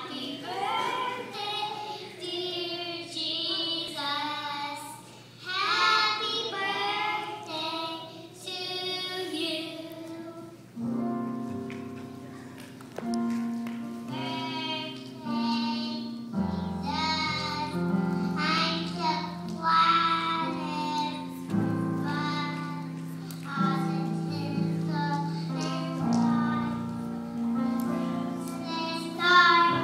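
Children singing a song; about eleven seconds in, an instrumental backing with held bass notes comes in under the voices.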